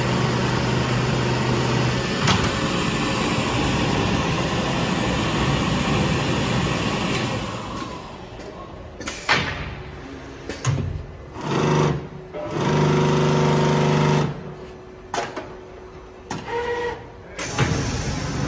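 Richpeace automatic tape-binding sewing machine running: dense, steady machine noise for the first half, then shorter bursts of stitching and motor hum with pauses between them, one held for about a second and a half.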